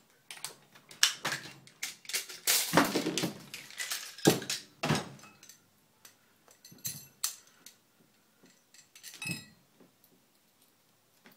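AR-15 rifle being taken apart by hand at speed: a quick run of metal clicks, clacks and rattles as parts come apart, with two loud knocks about four and five seconds in, then sparser, fainter clicks.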